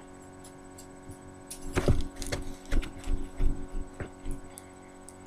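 Handling noises from a small bottle and its shipping bag: a few soft knocks and rustles, loudest about two seconds in, over a steady electrical hum.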